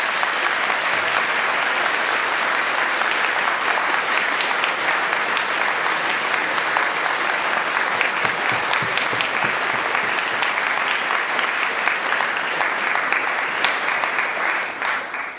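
Audience applauding: a long, steady round of clapping from a large crowd that dies away near the end.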